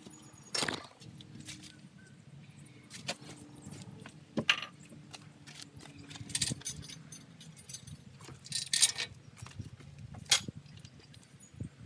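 Scattered metallic clinks and knocks of small bolts and tools being handled while fitting a loader's mounting hardware, with a few sharper clanks, the loudest near the middle and toward the end.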